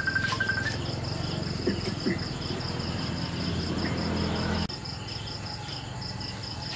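Crickets chirping in a steady pulse, about five a second. A low hum runs underneath and cuts off abruptly about two-thirds of the way through, and a brief rapid run of high chirps comes right at the start.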